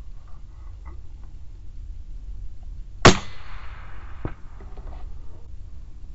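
A single rifle shot about three seconds in, with a long echo rolling away after it, then a fainter sharp crack about a second later.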